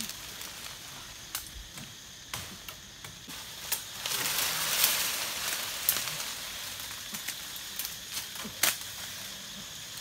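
Wood fire crackling with scattered sharp pops, and a hiss that swells about four seconds in and eases off after about six.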